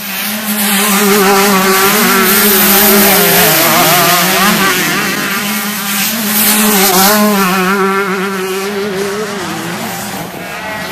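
Two-stroke motocross bike engine running at high revs, its pitch wavering up and down.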